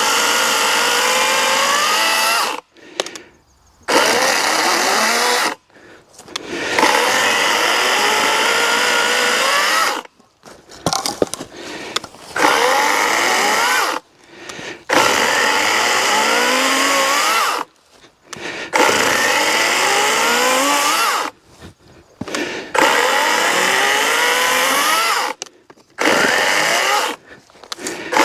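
A 40-volt Wild Badger Power cordless electric chainsaw cutting through a log in a series of runs of a few seconds each. The motor stops briefly between runs, and its whine rises in pitch during each one.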